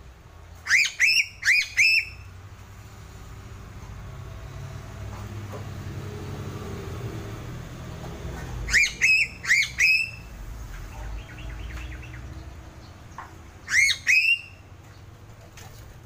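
Piping crow (Sulawesi crow) calling in three bursts of short, sharp notes that flick upward in pitch: four notes about a second in, four more about halfway through, and two near the end. A low steady rumble runs underneath.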